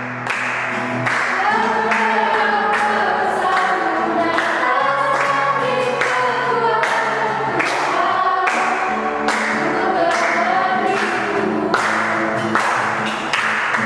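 A group of voices singing a worship song together over musical accompaniment with a steady beat.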